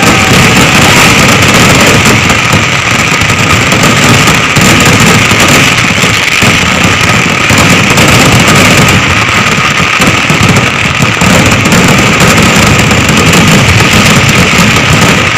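A massed Kerala vedikettu fireworks barrage: firecrackers and shells going off so densely that the bangs merge into one loud, continuous roar.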